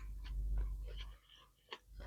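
Close-up chewing with wet mouth clicks and small crackles, over a low rumble that fades about halfway through.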